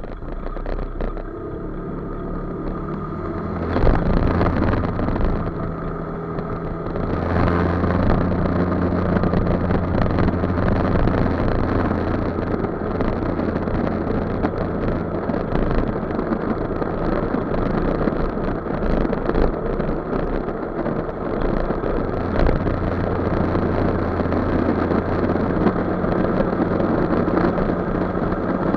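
Motor scooter's engine running under way, with wind and road noise. The engine note picks up around four seconds in and again at about seven seconds as it accelerates, then holds steady at cruising speed.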